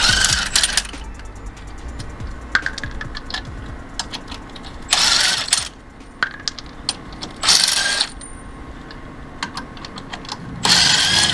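Cordless impact wrench run in four short bursts, each under a second, spinning off the pickup's already-loosened wheel lug nuts. Light metallic clicks come between the bursts.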